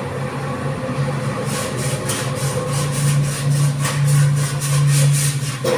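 A body file being pushed in repeated strokes across a dented steel car panel, about three or four rasping strokes a second, starting about a second and a half in; filing like this highlights the panel's low spots. Under it a steady low machine hum runs throughout.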